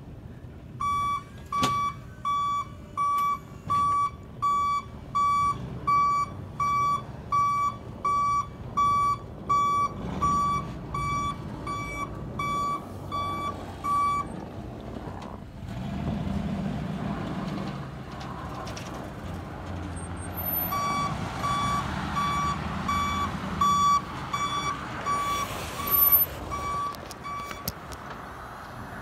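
Backup alarm on a Ford F-250 plow truck beeping evenly, about three beeps every two seconds, while the truck reverses. It stops for several seconds midway and then starts again. The truck's engine runs underneath, and there is a sharp knock near the end.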